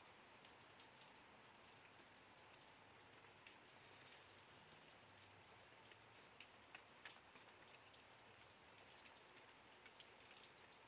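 Faint, steady rain, with scattered drops ticking irregularly.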